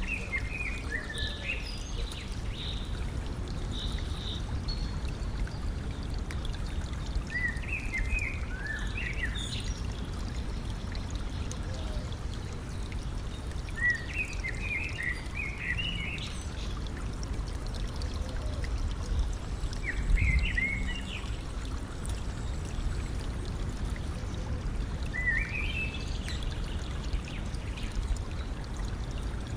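A stream flowing and trickling steadily, with a small songbird singing short phrases of quick rising and falling notes every few seconds.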